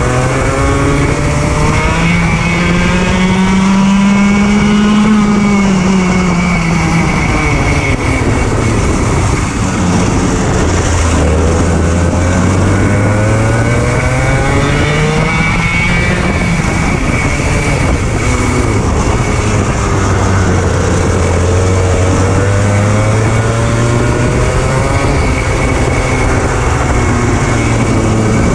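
100 cc two-stroke racing kart engine (18 hp) at racing speed. It revs up in long climbs of several seconds and drops back sharply, over and over, as it brakes and accelerates around the track.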